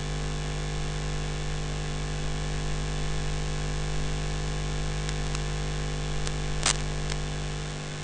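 Steady recording hiss with an electrical mains hum, and a few faint mouse clicks about five to seven seconds in.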